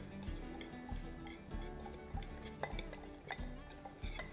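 Metal whisk stirring an egg and cornmeal batter in a glass bowl, with irregular light clinks against the bowl, over soft background music.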